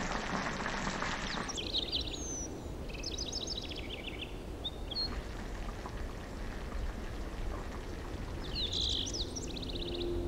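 Chicken breasts simmering in stock in a frying pan, a dense bubbling hiss that cuts off abruptly about a second and a half in. Then outdoor ambience with birds chirping in several short runs of rapid high notes, around three seconds in and again near the end.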